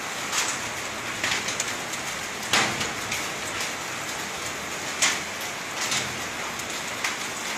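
Volcanic ashfall mixed with rain pattering steadily on surfaces, with sharp single hits every second or two, the loudest about two and a half and five seconds in. The drops are laden with sand and grit from the Taal eruption.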